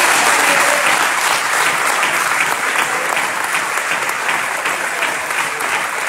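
Large seated audience applauding, loudest at first and easing off slightly.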